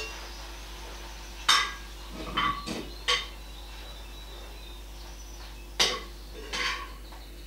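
Mushrooms and butter sizzling in a cast-iron skillet, with a utensil clinking against the pan about five times as the mushrooms are stirred.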